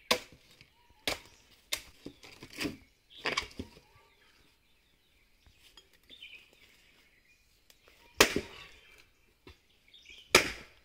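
Sharp, irregular blows of an axe striking wooden logs and planks. About six chops come in the first few seconds, then after a pause two louder ones near the end.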